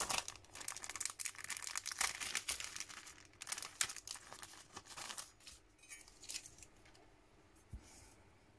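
Clear plastic packaging sleeve crinkling and rustling as thin metal cutting dies are pulled out of it, busy for about five seconds, then petering out.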